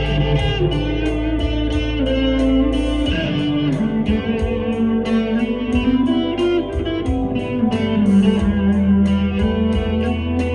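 Korean-made Epiphone Les Paul Custom electric guitar playing a melodic lead line with bent notes. It plays over a steady beat with regular ticks and a low sustained bass.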